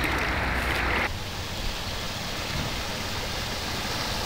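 Water sloshing steadily as someone wades through shin-deep floodwater in rubber boots. It cuts off abruptly about a second in, leaving a quieter, even noisy background.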